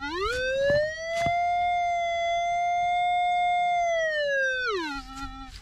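Minelab Equinox 600 metal detector in pinpoint mode, giving one long electronic tone. The tone rises in pitch as the coil comes up to the target, holds high for about four seconds, then slides back down. It is the sign of a metal target at that spot, which the operator calls a very good signal.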